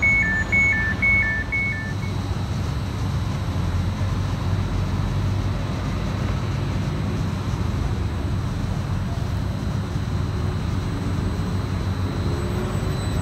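Greater Anglia electric train pulling out of the platform with a steady low hum. In the first two seconds a high two-tone beep alternates four times.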